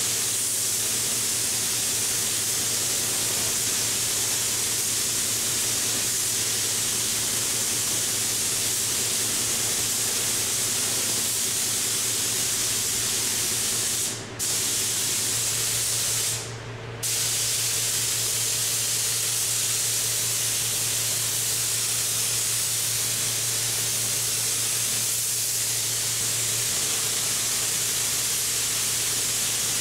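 DeVilbiss Finish Line 3 spray gun hissing steadily as compressed air set to about 22 psi atomizes primer onto a bare aluminium wing panel. A low steady hum from the spray booth's exhaust fan runs beneath it. The hiss stops briefly twice about halfway through.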